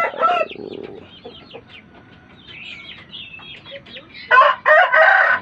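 Chickens: the end of a rooster's crow fades out just after the start, soft clucking follows, and a loud crow begins about four seconds in.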